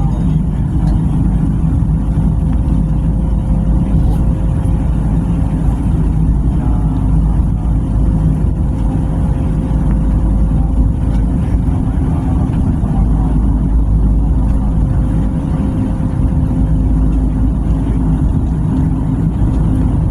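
Passenger train running along the line, heard from on board: a steady, loud low rumble with an even hum and no let-up.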